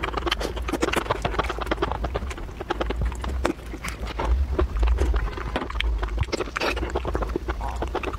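Close-miked mouth sounds of raw giant shrimp being eaten: wet sucking and slurping of the meat from the shell, with many small rapid clicks, over a steady low hum.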